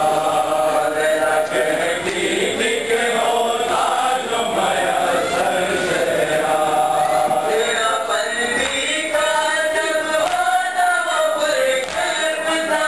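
A group of men chanting a nauha, a Shia lament, in unison, with chest-beating (matam) keeping time underneath.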